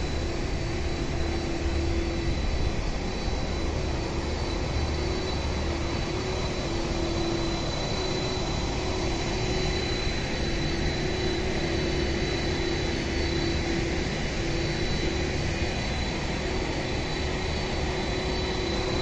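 Carry deck crane's engine running steadily: a low drone with a wavering hum and a thin, steady high whine over it.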